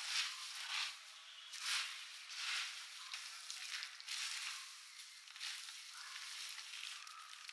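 Crisp fried snack mixture of gram-flour strands, fried peanuts and chana dal being tossed and mixed with powdered sugar and spices. It makes a dry rustling crunch that swells and fades about once a second.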